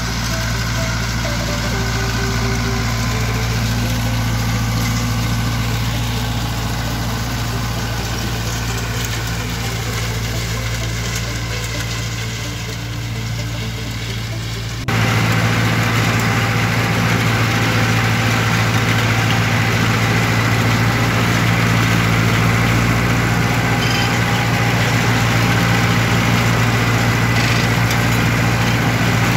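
Fendt 108 SA tractor engine running steadily while pulling a rotary hay tedder. About halfway through, the sound switches suddenly to a louder, closer engine sound heard from inside the cab.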